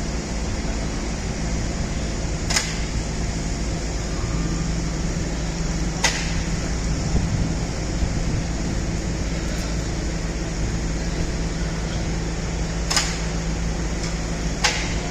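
Suspended construction cradle running: a steady low mechanical hum with a few sharp clicks or knocks several seconds apart.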